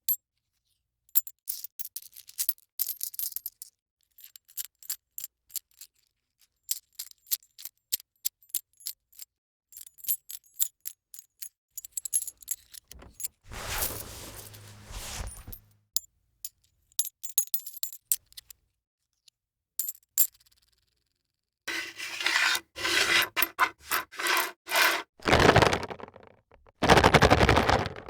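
A run of separate foley effects: many quick, bright clicks and small jingles of hard little objects, then several longer, louder scraping sounds near the end.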